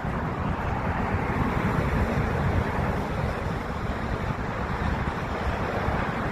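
Steady rumble of twin-engine jet airliners taxiing, mixed with wind buffeting the microphone.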